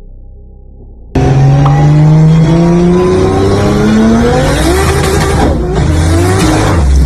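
Built 1JZ inline-six in a Nissan 240SX S13 revving hard, heard from inside the cabin, cutting in suddenly about a second in. Its pitch climbs over several seconds, dips briefly, climbs again and settles into a low drone near the end, with tire noise underneath.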